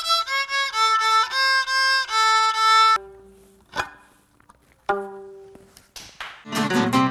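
Solo violin playing an étude in bowed, sustained notes, breaking off abruptly about three seconds in. A couple of clicks and a short ringing tone follow, then strummed guitar music starts near the end.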